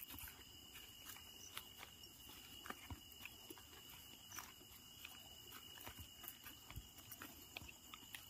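Near silence: faint, irregular footsteps crunching on a dirt path strewn with leaves, over a steady, faint high-pitched hum.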